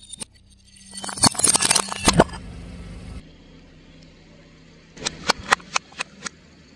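Car tyre crushing a ceramic plate: a dense burst of cracking and shattering lasting about a second, over a low car engine hum. Later comes a quick run of six sharp pops as water balloons burst under the tyre.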